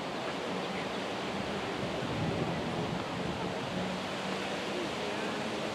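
Steady rushing wind noise on the microphone, with a faint low hum underneath.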